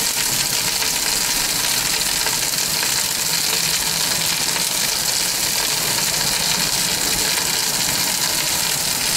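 Dry-aged rump steak sizzling on the grate of a high-heat electric tabletop grill, a steady even hiss.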